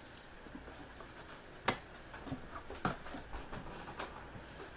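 Faint rustling and handling as a Funko Soda's can-shaped package is opened by hand, with two sharp clicks, about a second and a half in and again about a second later.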